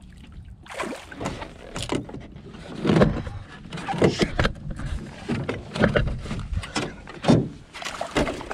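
Irregular knocks and bumps in a small jon boat, with water splashing, as a hooked trout is brought to the boat and the landing net comes out. The loudest knocks come about three seconds in and again after seven seconds.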